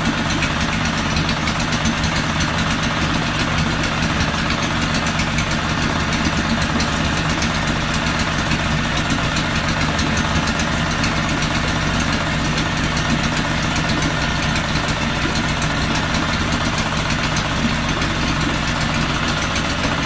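Honda 5 hp four-stroke outboard motor idling steadily with its lower unit in a barrel of water, running evenly on a freshly cleaned carburetor and re-gapped spark plug.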